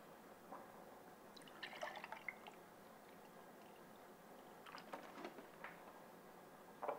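Milk poured from a plastic jug into a tall drinking glass: faint splashing and dripping, in a few scattered spells rather than one steady stream.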